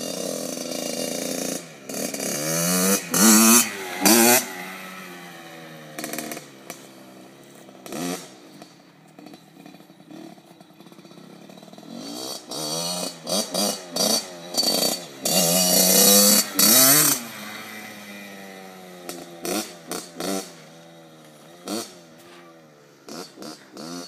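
Kawasaki KX60 dirt bike's small two-stroke single-cylinder engine revving in repeated throttle bursts, its pitch rising and falling as the bike is ridden. The loudest bursts come about three to four seconds in and again from about twelve to seventeen seconds in; between them it drops back to a lower, quieter drone.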